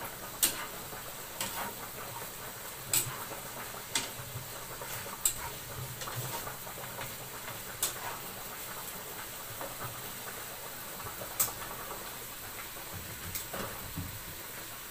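Bacon sizzling in a frying pan on a gas hob, a steady hiss, with a few sharp clicks and taps of a utensil against the pan and pot.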